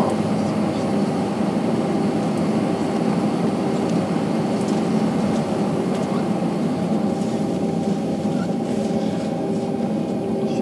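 Steady cabin noise inside an Airbus A321-214 taxiing, its CFM56 jet engines running at low power: an even drone with a steady hum through it.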